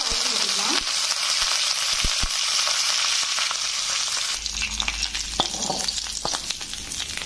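A tempering of dried red chilli, mustard seeds and dal sizzling in hot oil in a pan, with curry leaves added, as a steady frying hiss. From about four seconds in, the sizzle eases and a spoon clicks and scrapes against the pan.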